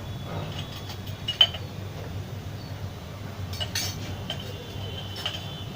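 A metal spoon clinking against kitchen dishes a few times: once about a second and a half in, then several light clinks in the second half, some leaving a brief ring.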